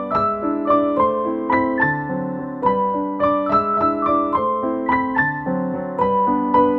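Background piano music: a gentle, even run of notes, a couple to the second.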